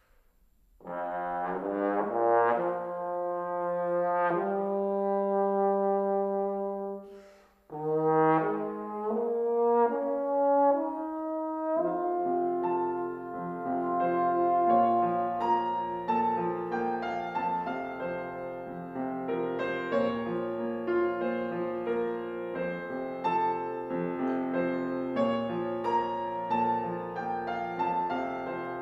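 Trombone playing an unaccompanied phrase with a long held note, a brief break, then a second phrase; a grand piano joins about twelve seconds in, and the piano carries on alone near the end.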